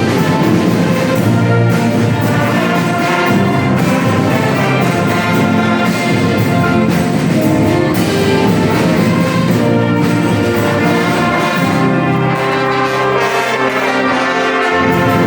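Brass band playing, many horns sounding together, with low held notes toward the end.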